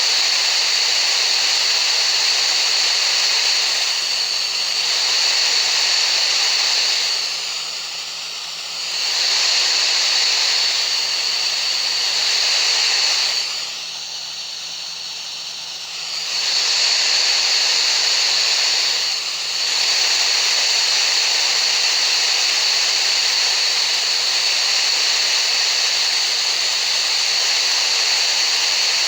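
Steady hissing masking noise for tinnitus relief, with a steady high tone running through it. It dips in level for a couple of seconds about eight and fifteen seconds in, and briefly near twenty seconds.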